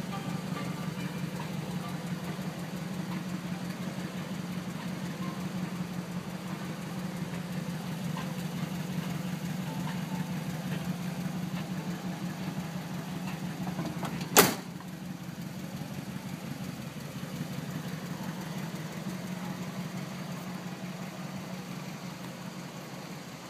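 A 1982 Chevrolet El Camino's engine idling steadily. About two-thirds of the way through, a single sharp slam, the car's door shutting, after which the idle sounds a little quieter.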